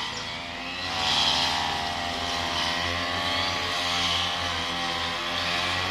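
Small two-stroke engine of a brush cutter running under load while clearing weeds, its pitch rising and falling every second or two.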